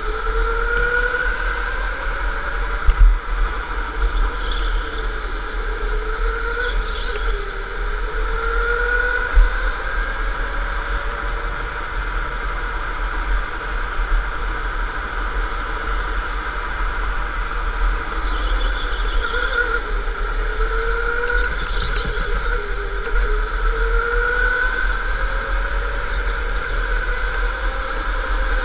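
Electric go-kart motor whining, its pitch rising as the kart accelerates and dropping back as it slows for each corner, over a steady low rumble from the kart-mounted camera. Two sharp knocks, about three and nine seconds in.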